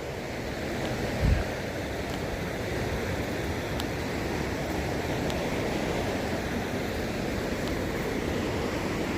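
Steady rushing of river water flowing over rocks. A short low thump comes about a second in.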